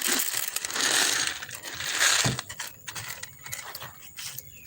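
Dry cat food kibble rattling and clicking. The clicks are dense for about the first two seconds, then thin out to scattered clicks.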